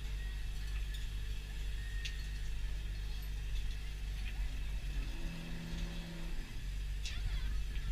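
Longline fishing boat's engine and line-hauling machinery running with a steady low hum while the line is hauled in, with a few light clicks from the gear. About five seconds in, a second, slightly higher hum swells for a second or so and fades.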